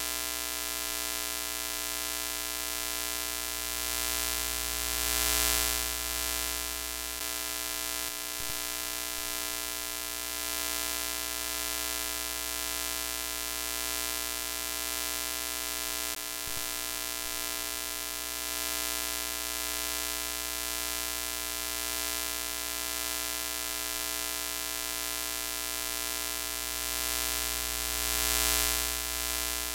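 Broken-TV static sound effect: a steady electrical buzz over hiss, swelling louder about five seconds in and again near the end.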